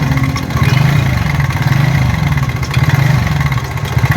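TVS Ntorq 125 BS6 scooter engine idling with a loud, fast clattering rattle from inside the engine, which the mechanic diagnoses as a dead timing chain tensioner letting the chain rattle.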